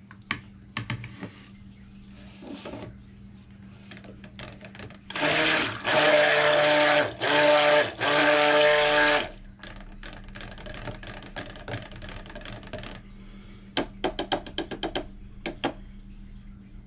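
Stick blender running in a few short bursts, about four over four seconds, mixing a pitcher of cold process soap batter. Near the end, a quick run of light clicks.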